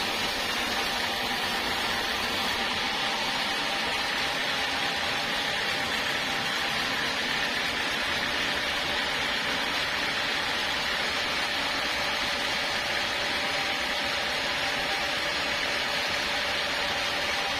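Sawmill machinery running steadily: an even, continuous hiss-like noise with a faint steady hum underneath, with no pauses or changes.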